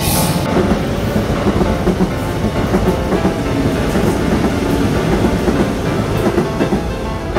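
Seoul Subway Line 1 electric commuter train running past the platform: a steady rumble with wheels clattering on the rails.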